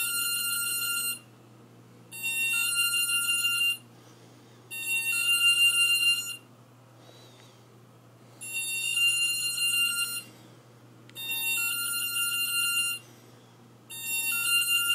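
Multirotor drone's electronics beeping during an ESC calibration with a Pixhawk flight controller: six bursts of rapid high-pitched beeps, each lasting about a second and a half, repeating every two to three seconds.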